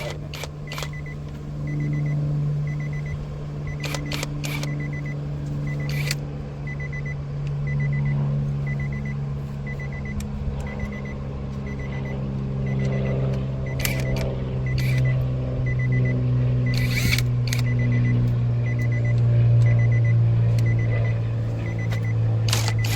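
A car engine idling with a steady low hum, under a faint door-open warning chime beeping about every half second. Sharp plastic clicks and taps come from handling the window switch and its screws.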